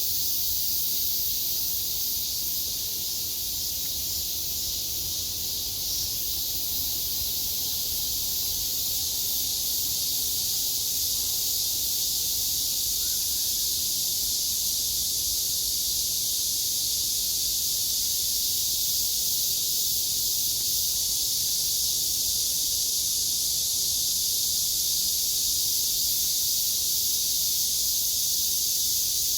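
Chorus of cicadas singing: a steady, high-pitched buzzing drone that holds level throughout.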